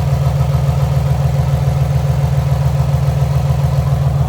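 A 2006 Nissan 350Z's 3.5-litre V6 idling steadily. The engine is running on a misfire: coils 4 and 6 show no firing activity and the coil on cylinder 5 is unplugged.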